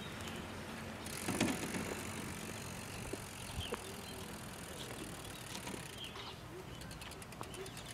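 Front-box cargo tricycle rolling over rough concrete: tyre noise with light rattles and clicks from the frame and box, and a louder clunk about a second and a half in. Near the end a rapid, even ticking sets in, the rear freewheel clicking as the rider coasts.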